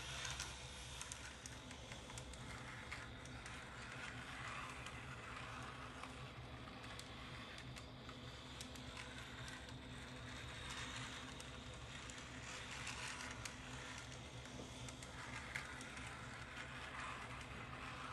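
Model Doraemon tram running around the diorama's track: a faint, steady whir and rattle of its small motor and wheels that swells and fades several times as it moves nearer and farther.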